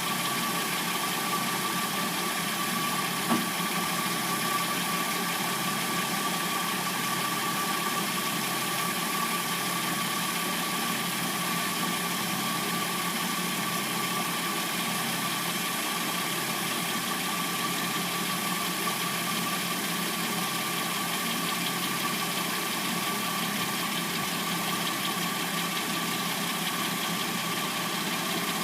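Hyundai Sonata replacement engine idling steadily once warmed up, with the clackety noise the owner assumes comes from the timing chain.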